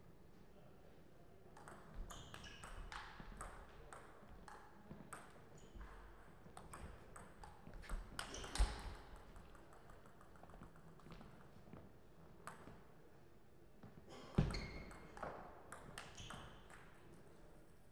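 Table tennis rallies: the ball clicking off the bats and the table in quick runs of hits, two rallies with a pause between. Two louder thumps stand out, a little before halfway and about four-fifths of the way through.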